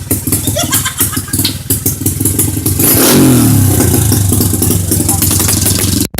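Modified Honda XRM125 motorcycle engine, a 57 big-valve build on stock stroke running race fuel, running unevenly for the first half, then revved once about halfway through, its pitch falling back to a steady idle. The sound cuts out for an instant just before the end.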